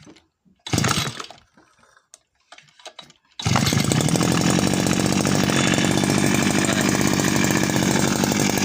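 Two-stroke brush cutter engine being pull-started: a short burst about a second in, then it catches about three and a half seconds in and runs steadily.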